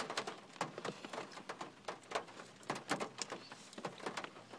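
Close-up chewing of an everything bagel with cream cheese: a quick, irregular run of mouth clicks.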